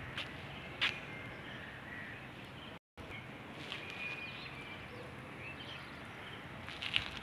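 Outdoor ambience with birds chirping now and then over a steady background hiss, and a few sharp clicks; the sound drops out briefly about three seconds in.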